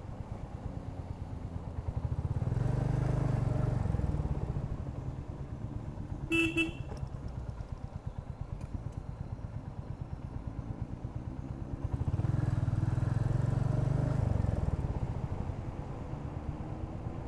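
Royal Enfield Hunter 350's single-cylinder engine running on the road, its note rising and falling twice as the bike accelerates and eases off. A short horn toot cuts in about a third of the way through.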